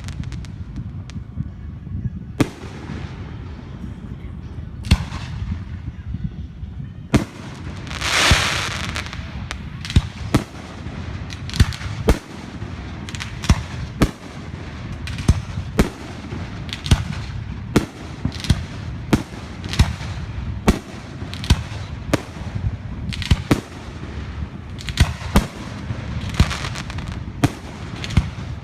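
Fireworks going off: a run of sharp bangs at irregular intervals, roughly one or two a second, over a steady low rumble, with a loud hissing whoosh about eight seconds in.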